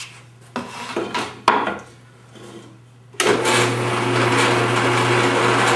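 A few knocks of wooden blanks being handled and set down on a drill press table. About three seconds in, the drill press motor switches on and runs steadily with a humming drone.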